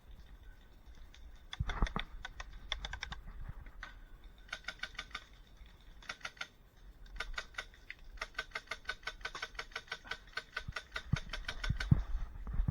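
Airsoft electric guns firing in rapid full-auto bursts, a fast run of sharp clicks in several bursts of about half a second to three seconds each. A few dull thumps near the end.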